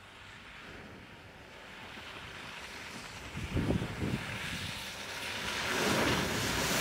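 Volkswagen Amarok pickup with its V6 diesel driving up a sandy track, growing louder as it approaches, with a couple of low thumps about halfway through. Near the end it ploughs through a wide puddle, and the rush of spraying water takes over.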